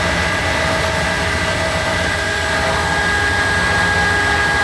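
Milnor industrial washer-extractor spinning its drum at high speed in the extract cycle, driven by a variable frequency drive. A steady motor whine with several high tones over a low hum, as the drum nears its top spin speed.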